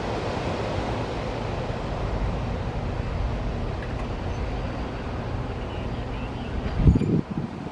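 Low rumble of a CSX autorack freight train moving away after passing the crossing, slowly fading. A brief low thump of wind on the microphone comes about seven seconds in.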